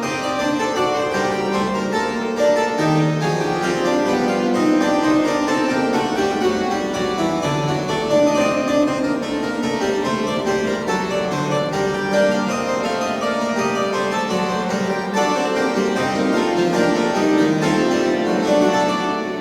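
Harpsichord playing a piece of music, a continuous stream of quickly changing notes.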